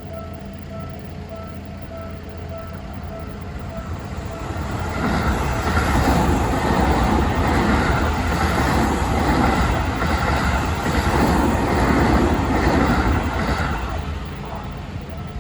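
Railway level-crossing warning bell ringing as a steady repeated ding. A train then passes through the crossing from about five seconds in to about fourteen seconds, its wheels clattering in a regular rhythm and drowning out the bell.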